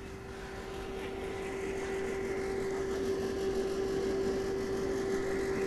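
Royal Enfield Classic 350 single-cylinder motorcycle under way, its steady engine note mixed with rushing wind noise, slowly growing louder as the bike gathers speed.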